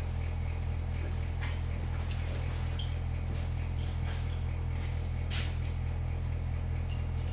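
A steady low hum throughout, with a few faint, irregular clicks as a socket wrench works the snowmobile's chain case drain plug loose.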